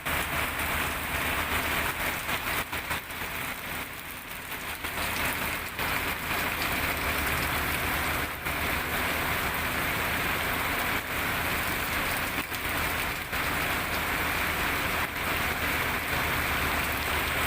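Steady heavy rain falling on hard surfaces, with scattered drip knocks, over a low steady machinery hum.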